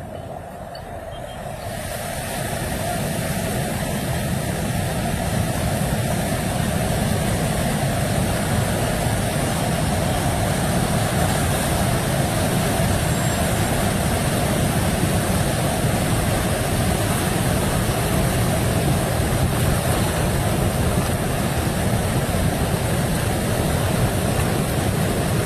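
Flash flood of muddy water surging over the rocks of a dry wadi bed. It is a rushing noise that builds over the first few seconds as the water arrives, then runs on steady.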